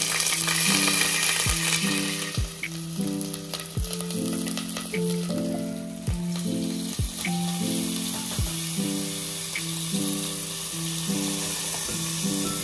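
Spice paste and then chopped onions hitting hot oil with whole spices in a stainless pressure cooker, sizzling hard. The sizzle flares right at the start and again about six seconds in as the onions are tipped off a steel plate with a wooden spatula. Background music with a soft beat plays underneath.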